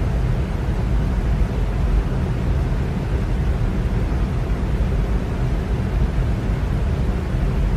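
Electric fan running steadily: a constant airy whoosh with a low rumble, unchanging throughout.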